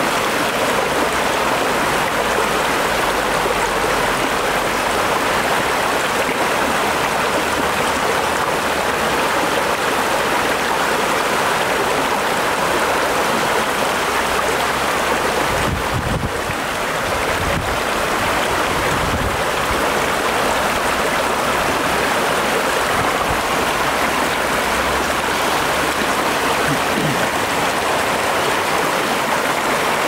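Mountain waterfall pouring down a steep granite rock face, a loud, steady rush of falling and splashing water.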